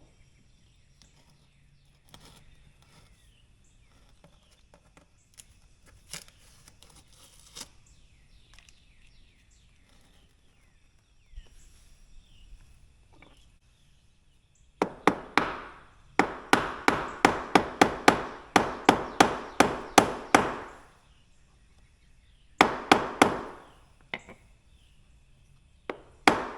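Hammer tapping a wooden replacement piece into position in a door jamb: a quick run of sharp knocks, about four a second, for some six seconds, then a shorter run after a brief pause.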